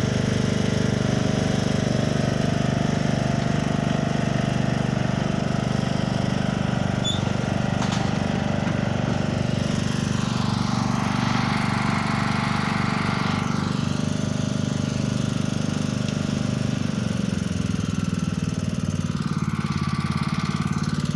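A small engine running steadily with a rapid, even firing pulse.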